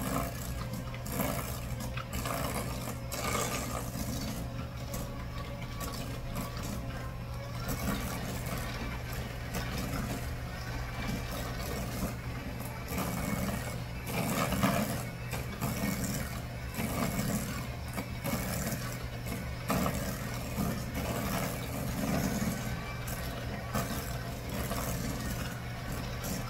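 Electric hand mixer running steadily, its beaters creaming butter and brown sugar in a stainless steel bowl, with a constant motor hum and irregular scraping and knocking of the beaters against the bowl.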